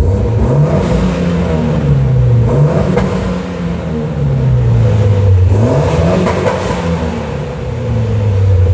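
Mitsubishi Lancer Evolution X's turbocharged four-cylinder engine, fitted with a Cobb cat-back exhaust and a test pipe, revved three times while standing. Each rev climbs quickly and sinks back slowly toward idle, in a parking garage.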